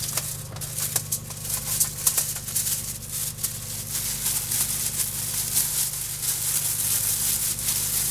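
Thin disposable plastic glove crinkling and rustling as it is pulled on and worked over the hand, a dense, continuous crackle.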